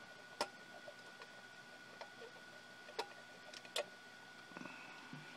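A few sharp, light clicks of small metal parts handled by fingers: a round panel-mount connector and its nut being fitted in a laser projector chassis. The clicks come irregularly, about four in all, over a faint steady high whine.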